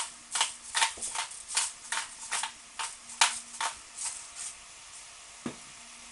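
Hand pepper mill grinding black peppercorns with quick twisting strokes, about two or three rasps a second, stopping after about four and a half seconds. A single low knock follows near the end.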